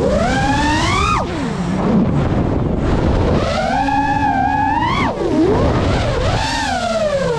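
FPV quadcopter's motors and propellers whining, the pitch swooping up and dropping sharply about three times as the throttle is worked.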